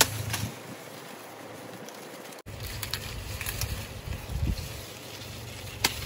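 Wind rumbling on the microphone, with a few sharp knocks from a machete chopping sugarcane stalks; the loudest knock comes near the end.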